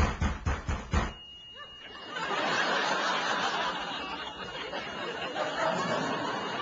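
Rapid banging, about four or five blows a second, that stops about a second in. Then a sitcom studio audience laughs, with a faint high steady tone beneath.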